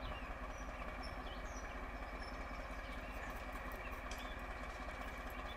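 Engine idling with a fast, even low throb and a steady higher hum, birds chirping over it.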